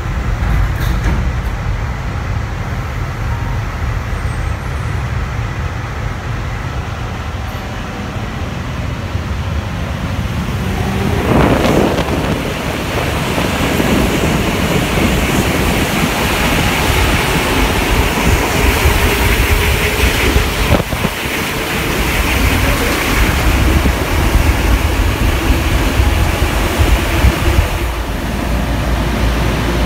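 Cabin sound of a rubber-tyred CAF NS-07 metro train pulling out of a station. A low rumble at first, then about eleven seconds in the running noise swells and stays louder, with a steady hiss, as the train gathers speed into the tunnel.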